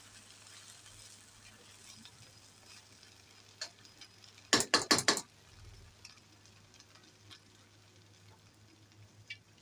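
Aluminium foil being crinkled over a pot of coconut rice: a short burst of sharp crackles about four and a half seconds in, over a faint steady hiss from the pot.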